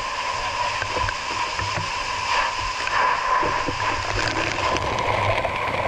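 Steady rush of spraying water over a low engine rumble.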